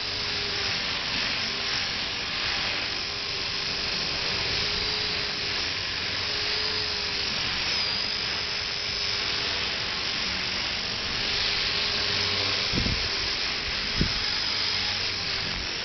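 Align T-Rex 250 electric RC helicopter flying: the brushless motor and gear drive give a steady high whine over the hiss of the spinning rotor blades, with the pitch wavering slightly. Two short thumps come near the end.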